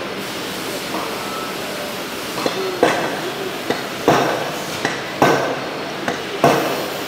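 Hammer blows on metal in a workshop: about four heavy strikes a little over a second apart, with lighter knocks between, each ringing briefly over a steady background hum. They begin a couple of seconds in.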